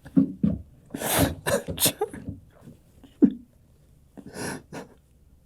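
A person's short, breathy vocal outbursts, gasps and sneeze-like grunts, several in quick succession in the first two seconds, one sharp loud one about three seconds in, and two more near the end.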